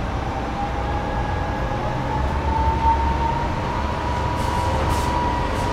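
Machinery running steadily: a low rumble with a whine that slowly rises in pitch.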